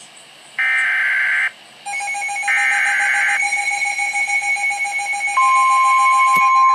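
Emergency Alert System signal for a tornado warning. It opens with a harsh, warbling burst of digital header data about a second long, then steady electronic alert tones set in. Another data burst plays over those tones, and a higher steady tone joins about five seconds in.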